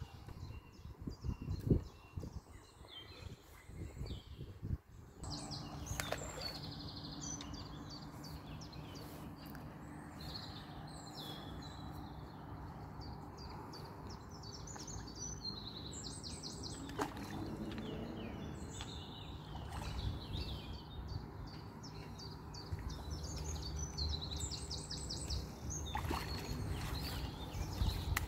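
Songbirds chirping and singing in repeated short high phrases, over a steady low hum that starts about five seconds in.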